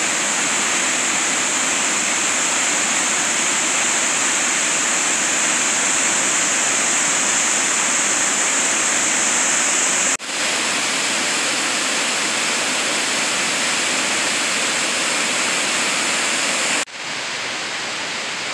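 Steady rush of water pouring down a large cascading mountain waterfall. It breaks off for an instant about ten seconds in and again near the end, after which it is a little softer.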